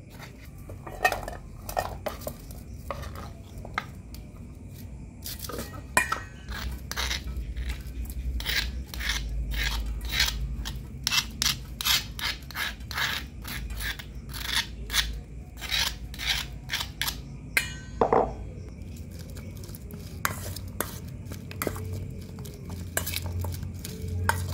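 Kitchen prep: a knife cutting tomato on a wooden board, then a run of rapid scraping and clinking, a few strokes a second, as chili paste is scraped out of a stone mortar into a stainless steel bowl, with one sharp knock near the end. The ingredients are then mixed in the metal bowl.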